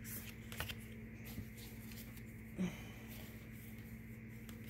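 Faint, scattered rustles and light taps of a tarot deck being handled, over a steady low hum.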